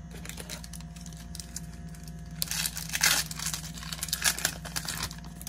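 Foil Pokémon card booster pack wrapper being torn open and crinkled: light rustling at first, then a dense run of crinkling and tearing from about two and a half seconds in.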